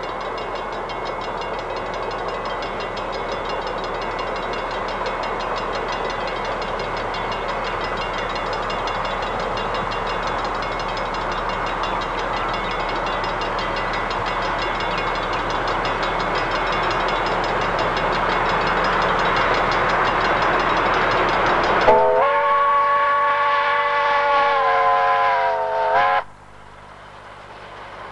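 Steam locomotive J1211 working an excursion train, its running noise growing slowly louder as it approaches. Near the end a steam whistle blows one steady blast of about four seconds, several tones sounding together, and cuts off suddenly.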